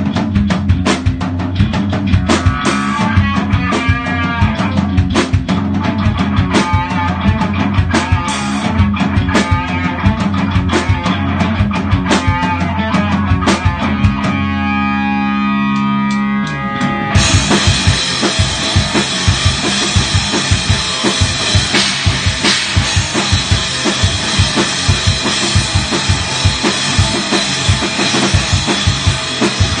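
A progressive metal band playing an instrumental passage: drum kit with rapid bass-drum and snare hits under guitars. About halfway through, the drums drop away under a held chord for a few seconds. Then the full band crashes back in with loud cymbals.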